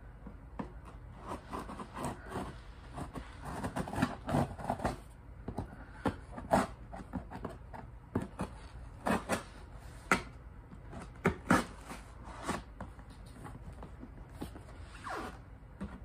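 Scissors cutting and scraping at the packing tape on a cardboard box: irregular snips, scratches and rustles of cardboard, with a few sharper clicks about six, ten and eleven seconds in.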